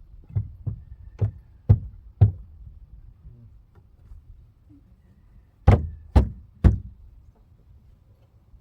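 Knocks on the wooden panels of a chicken coop as they are forced into place: five quick strikes in the first couple of seconds, then three louder ones about half a second apart later on.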